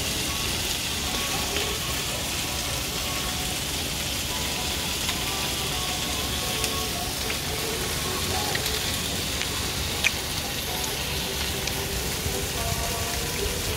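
Steady hissing background noise, with a few faint clicks and one sharper click about ten seconds in.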